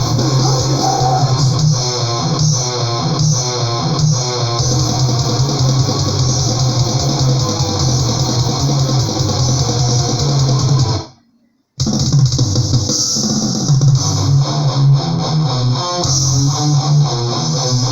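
Death/thrash metal recording: heavily distorted electric guitars and bass playing fast riffs. The music cuts out to silence for under a second about two-thirds of the way through, then comes back in.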